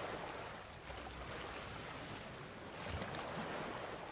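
Ocean waves washing in, a rushing sound that swells and eases, with a dull low thud about three seconds in.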